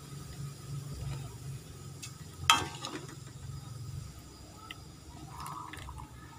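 Hot cooking oil sizzling faintly in a wok over a steady low hum, with a single sharp clink that rings briefly about two and a half seconds in.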